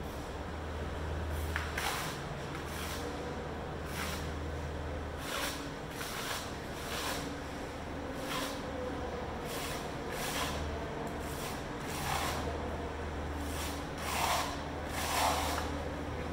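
Trowel scraping adhesive across an embossed aluminum diamond plate panel in a series of short strokes, roughly one a second, with a steady low hum underneath.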